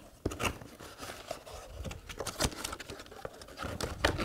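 Cardboard box being opened by hand: the flaps are pulled back and the packing inside is handled, giving irregular scrapes, taps and rustles, the sharpest about two and a half seconds in.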